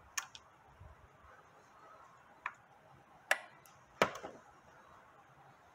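A few separate sharp metallic clicks, the loudest about four seconds in, from small steel parts being handled at a manual transmission's shift-detent bores: 12 mm detent bolts with their springs and ball bearings.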